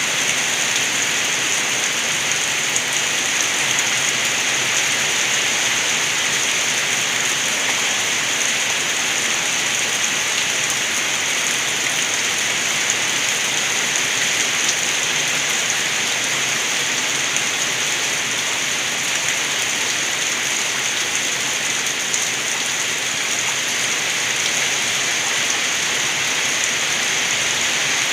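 Rain falling steadily with rainwater gurgling: an even, unbroken hiss that stays level throughout.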